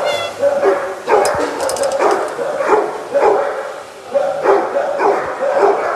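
Kenneled shelter dogs barking over and over, about two barks a second.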